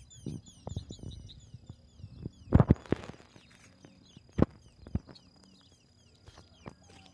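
Dry reed stalks and grass rustling and crackling as a dog pushes through them, with the loudest crackles a little before and after the middle. Small birds chirp in quick, high, falling notes throughout in the background.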